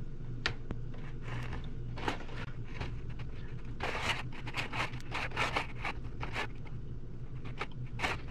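Metal wire being worked and cut with a hand tool to make lure eye hooks: irregular clicks and scraping, busiest about four seconds in, over a steady low hum.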